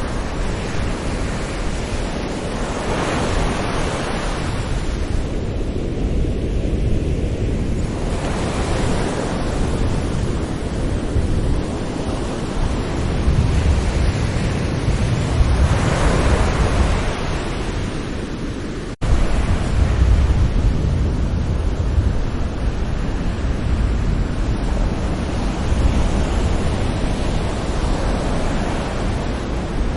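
Sea waves breaking on a shore: a continuous wash of surf with a deep rumble, swelling every several seconds, with a brief dropout about two-thirds of the way through.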